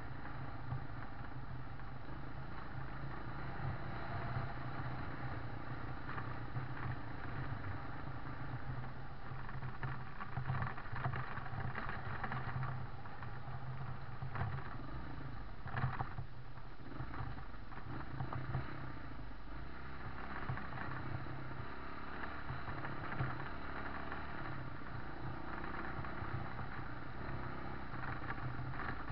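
Vehicle driving steadily along a stony dirt track, its engine running at an even pace under continuous rough-surface road noise. There is one brief louder knock about halfway through.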